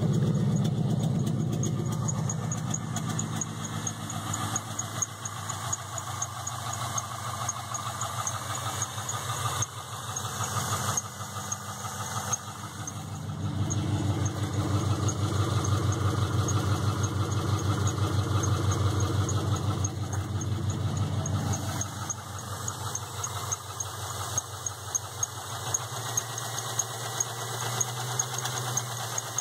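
LS1 5.7-litre V8 of a 1998 Pontiac Trans Am running just after start-up, with a regular knocking tick over the engine note. The engine gets louder for several seconds midway, then settles. The knock is a new noise the car has recently started making.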